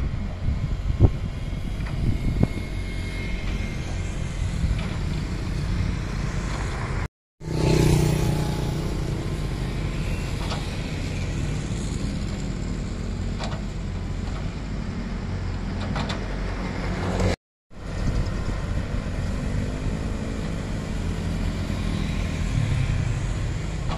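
Tatsuo wheeled excavator's diesel engine running steadily under digging work, with a few sharp clicks; the sound cuts out briefly twice.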